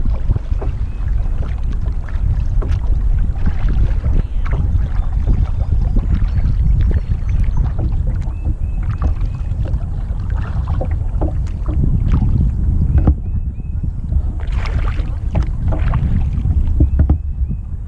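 Water splashing and rushing around a kayak running small river rapids, with irregular splashes from the hull and paddle. A heavy rumble of wind on the microphone runs underneath.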